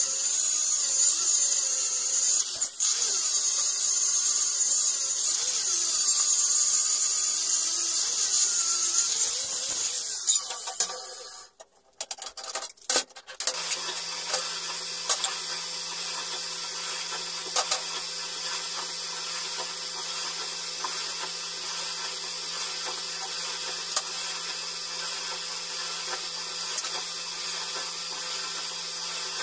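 Angle grinder cutting steel plate, its whine wavering up and down as the disc bites, for about the first eleven seconds; then it stops. After that there is a steady hiss with a faint hum and a few light clicks as the cut steel parts are handled and fitted together.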